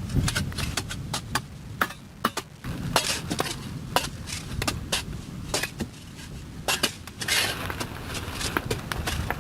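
Irregular sharp metallic clinks and knocks of hand tools striking, with a low rumble underneath and a brief scraping rush about seven seconds in.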